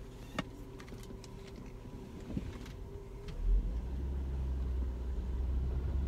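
Car engine idling with a steady low hum and a few light knocks, then about three seconds in a louder, deeper rumble sets in as the car starts to move off.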